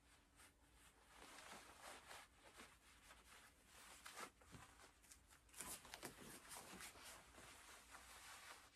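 Faint rustling and brushing of a cotton taekwondo uniform and cloth belt as the belt is pulled tight and adjusted, in scattered soft scratches.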